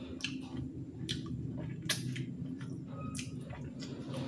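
Close-up eating sounds of chicken feet being chewed and sucked, with sharp wet mouth clicks several times over a steady low hum.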